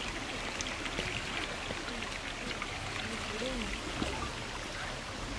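Faint, distant voices talking over a steady rushing background noise.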